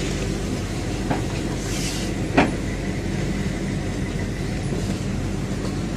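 Vehicle engine and road noise heard from inside the cab while driving, a steady low hum, with two light clicks about one and two and a half seconds in.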